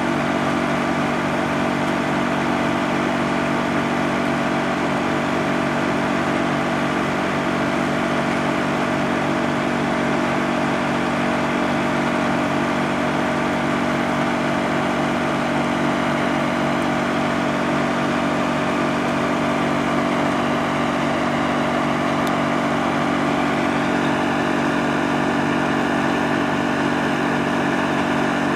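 Wood chipper running steadily with a constant engine-like drone, its tone shifting slightly about two-thirds of the way through.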